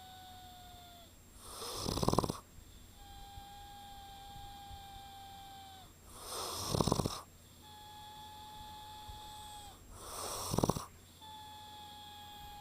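A sleeper snoring and whistling at the same time: three loud, rough snores about four seconds apart, with a long, steady, high whistle sounding in the breaths between them.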